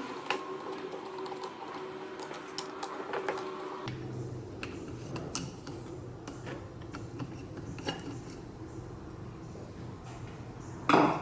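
Scattered light metallic clicks and taps of hand tools working on an old cast bench vise, likely as its jaws are unscrewed and taken off. A faint steady tone in the background gives way abruptly to a low steady rumble about four seconds in.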